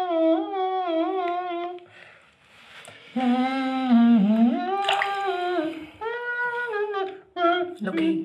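A person humming a wordless, wavering tune in two phrases with a short pause between them; the second phrase starts lower and swoops up.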